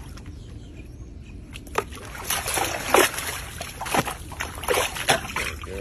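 Alligator lunging and thrashing in a pool after food held above it, throwing up water in a run of sharp splashes that start about two seconds in, the loudest near the middle.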